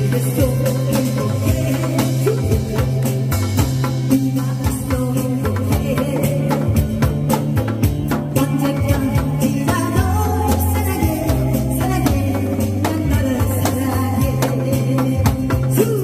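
Loud music with a steady drum beat and a pulsing bass line.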